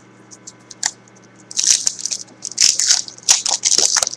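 Foil wrapper of a trading-card pack crinkling as it is handled and opened. A few faint clicks come first, then a rapid, dense run of crackles starts about one and a half seconds in.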